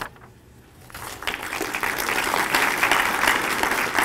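Audience applauding: the clapping starts about a second in and swells to a steady, dense applause.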